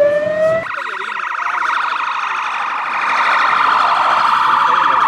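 Emergency-vehicle siren: a slow wail that ends a moment in, when it switches abruptly to a fast, continuous yelp.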